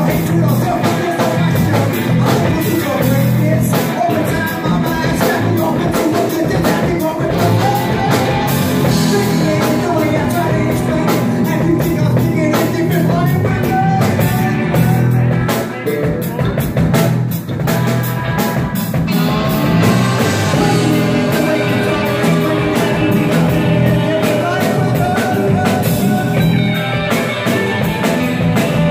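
Live rock band playing: a singer over electric guitar, drums and trombone.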